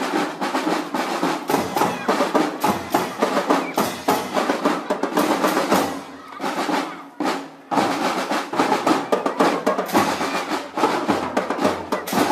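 A marching drum band's percussion section playing: snare drums and other drums beating a fast, dense rhythm with rolls. The playing thins out a little past halfway, then comes back in loud all at once.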